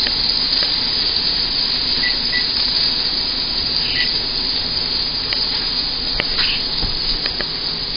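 Venison chops sizzling steadily on a hot electric grill, a dense high hiss with a few faint clicks and pops.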